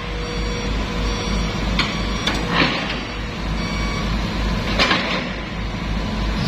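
Sumitomo SH210 excavator's diesel engine running with a steady low pulse, with a few short metallic clanks and scrapes about two, two and a half and five seconds in.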